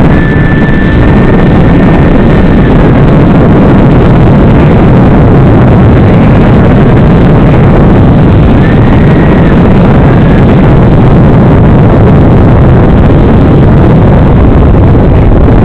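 FPV drone's motors and propellers running in flight, with wind rush, picked up by the onboard camera microphone and sent over the analog video link: a loud, steady, distorted drone. A thin high whine rises out of it twice.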